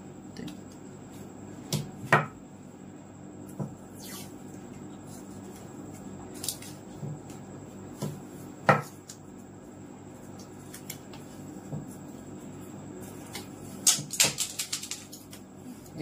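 Insulation tape being wrapped by hand around a PVC pipe joint: scattered sharp clicks and knocks of handled plastic pipe, with a quick run of clicks near the end, over a steady low hum.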